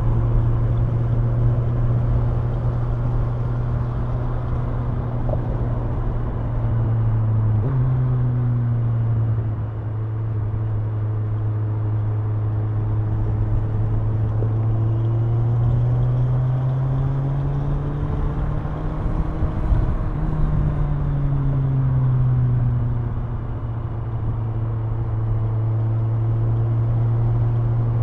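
Kawasaki Ninja 1000's inline-four engine and exhaust under way at road speed, a steady note. About eight seconds in the pitch steps up sharply, then climbs gradually and eases back down again later on.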